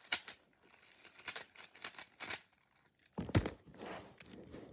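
Plastic 3x3 Rubik's Cube being turned by hand: a run of short clicking, scraping layer turns, with a heavier knock a little after three seconds in.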